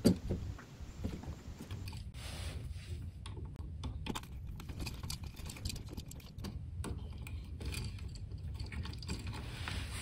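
Faint scattered clicks and rustles of electrical wires being handled, as a plastic wire nut is twisted onto stripped copper house wires in an outlet box, over a low steady hum.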